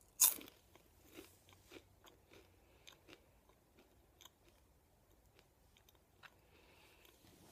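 Someone biting into a Brad's Raw Crunchy Kale Chip, with one sharp crunch about a quarter second in. Close-up chewing follows, with small irregular crackles of the dry chip that thin out after about four seconds.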